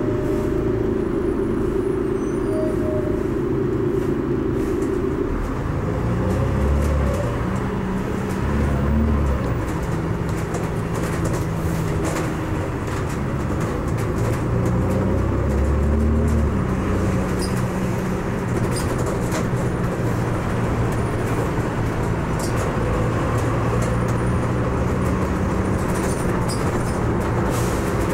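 Volvo Olympian double-decker bus heard from the upper deck. The engine idles steadily for about five seconds, then the bus pulls away, the engine note rising through the gears twice before settling into steady running with road noise.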